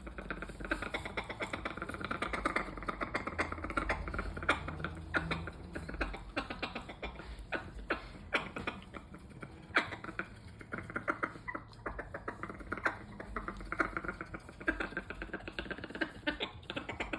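Pet parrot making strange rapid clicking and popping noises, a dense run of short clicks with louder pops here and there.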